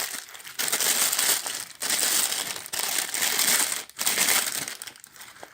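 Packaging crinkling and rustling in several loud spells with short gaps between them, as a camera lens is unwrapped; it thins out near the end.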